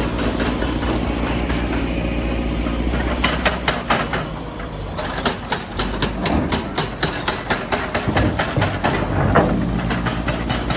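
Heavy machinery's diesel engine running steadily. From about three seconds in, rapid sharp impacts come several times a second, as of hard metal-on-rock striking.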